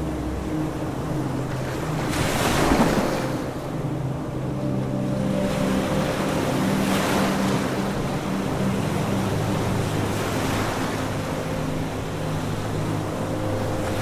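Ocean surf washing in, swelling and fading every three to four seconds, the first surge the loudest. Beneath it runs a steady low hum.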